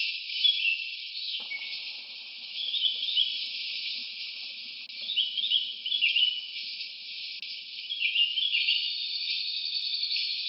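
Forest ambience: a steady high insect drone with short chirping calls in clusters every couple of seconds, and a steady trill joining in near the end.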